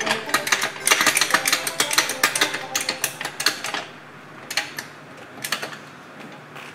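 MVP Pro-Lift hydraulic floor jack being pumped up by hand, a quick run of metallic clicks and rattles that thins to a few scattered clicks about four seconds in.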